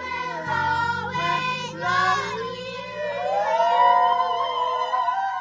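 A group of teenage girls singing a song together, loud and spirited, with a long rising, held note over the second half.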